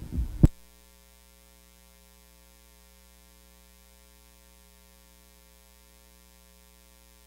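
A brief low noise ending in a sharp click about half a second in, then a faint, steady electrical mains hum with its overtones.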